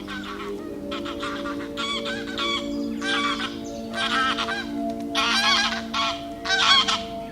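Geese honking, a run of repeated calls that grow louder over the last few seconds, over background music with held notes.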